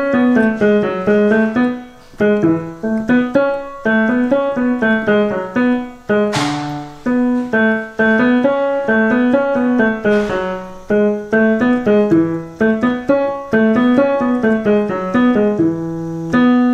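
Digital piano played by a student, a rondo passage of notes and chords at practice pace with brief breaks between phrases. Two short breathy noises come about six and ten seconds in.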